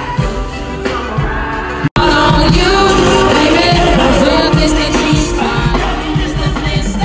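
Live R&B concert music with a singer's voice and full band, recorded from the crowd on a phone. The sound drops out abruptly about two seconds in and comes back with a different passage.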